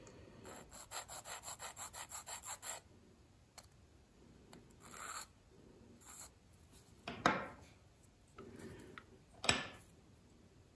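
Small needle file rasping lightly across the edge of a photo-etched brass porthole, filing down the attachment tab. A quick run of about a dozen short strokes, then a few separate strokes, two of them louder, near the end.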